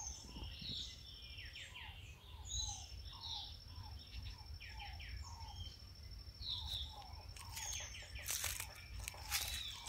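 Several birds calling in the open: a repeated short low note answered by higher chirps and trills, over a thin steady high-pitched tone. Near the end come crackling steps on dry leaves.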